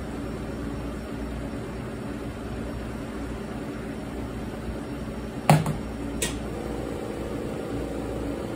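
Steady low hum of room background noise, with two short sharp knocks a little past halfway, less than a second apart, the first the loudest.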